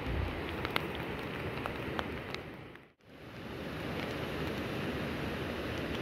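Steady rain falling, with scattered sharp drips. About three seconds in the sound fades down to silence and comes straight back up.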